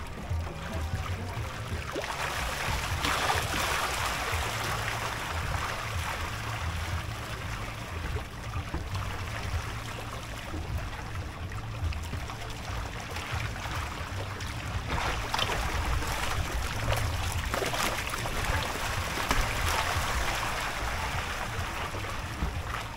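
Water trickling and lapping against a kayak's hull as it moves over calm water. The sound swells and fades every few seconds over a low rumble.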